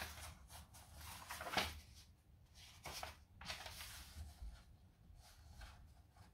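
Paper pages of a booklet being handled and turned, rustling in a few short bursts, the loudest about one and a half seconds in.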